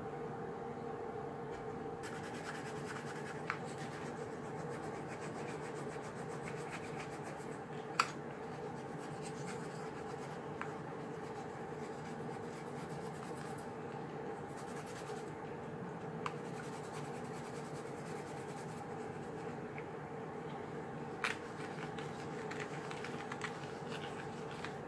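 A blade scraping and shaving dried clay off a doll limb: a fine, steady scratching, with a few sharp clicks now and then.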